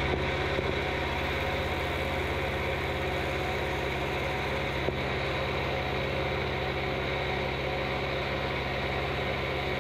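Milling machine running with an end mill cutting a notch into a thick steel plate: a steady, even machine hum that does not change.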